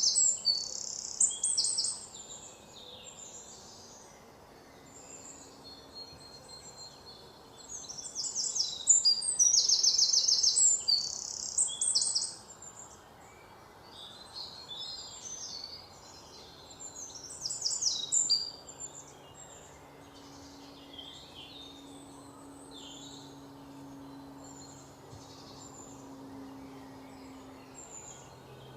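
Several birds chirping and calling in a forest, with a loud, fast high trill at the start, again for several seconds in the middle and briefly a little later, and softer chirps in between. A faint low drone lies underneath in the second half.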